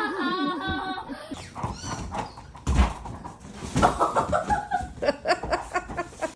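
A dog vocalizing in a run of wavering, whining calls.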